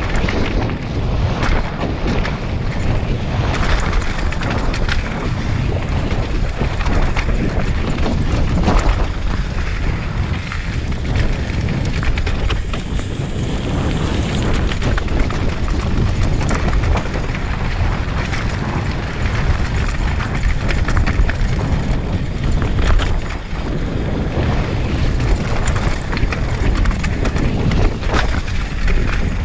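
Downhill mountain bike on a rough rocky trail: wind buffeting the microphone over the rumble and clatter of tyres on loose stone, with frequent sharp knocks from the bike taking hits.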